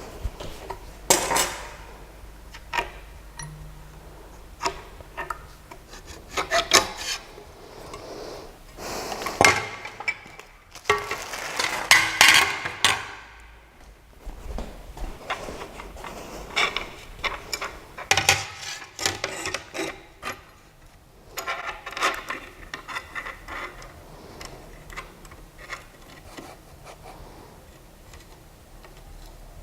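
Hands handling hard plastic and metal parts: irregular rubbing, scraping and clicking, with several louder clusters of scraping in the middle.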